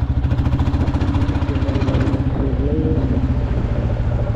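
A two-wheeler's engine running steadily, with a fast, even exhaust beat.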